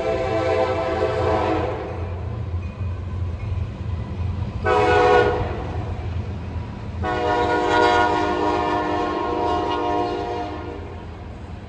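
Air horn of a CSX SD70MAC freight locomotive sounding the last part of the grade-crossing signal: a long blast ending about two seconds in, a short blast about five seconds in, then a long blast of about three and a half seconds. Under it runs the steady low rumble of the approaching train.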